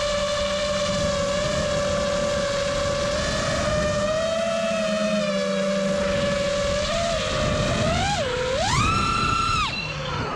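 Armattan Badger FPV quadcopter's brushless motors whining steadily under a noisy rush of air. About eight seconds in the pitch dips, then rises sharply to a much higher whine as the throttle is punched for a climb, and it falls away just before the end.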